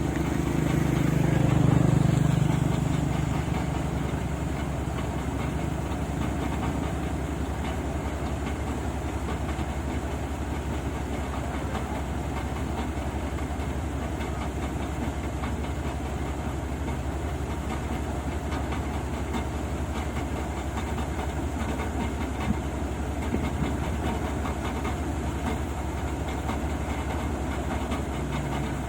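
Rice combine harvester's engine running steadily, with a louder low rumble that swells and fades about two seconds in. A single short click comes near the end.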